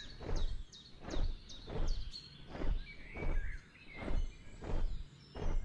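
Steady footsteps, one thud about every 0.7 s, over a jungle background of birds chirping.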